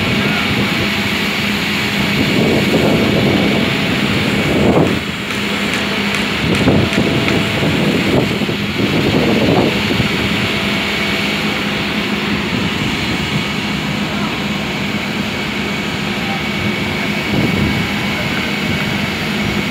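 Steady hum of running machinery, with intermittent knocks and scrapes of marble slabs being lifted and handled.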